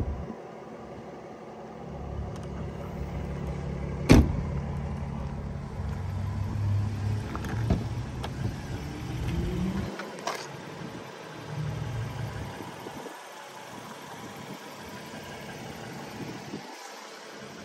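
Jaguar F-Type's trunk lid shut with one loud slam about four seconds in, over a low rumble. Near the middle comes a short rising whir and then a click as the driver's door is unlatched and opened.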